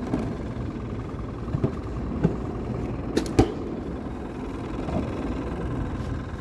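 A steady low rumble with a few sharp knocks and taps around the middle, from handling the catch and gear in a small boat.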